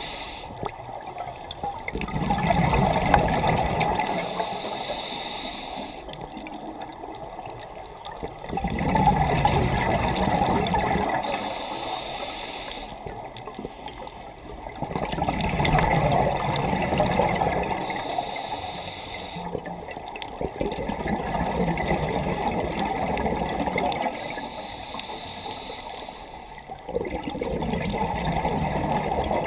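Underwater scuba regulator breathing: a gurgling rush of exhaled bubbles about every six seconds, five times, each lasting a few seconds, with quieter gaps between for the inhale.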